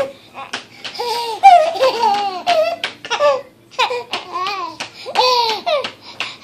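Baby laughing in several high-pitched bouts, each a string of short rising and falling squeals.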